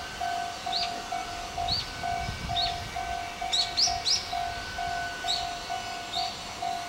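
Railway level-crossing warning bell ringing in an even rhythm of about two strikes a second, the signal that a train is approaching. A bird calls over it with a short falling chirp about once a second.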